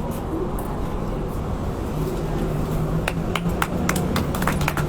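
Audience applause after the closing thanks: a few scattered claps about three seconds in, quickly growing denser, over a steady low outdoor hum.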